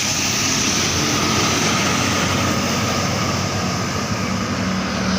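A bus's engine running as the coach pulls in, under a steady hiss, with a low engine hum that grows stronger near the end. No horn is sounded.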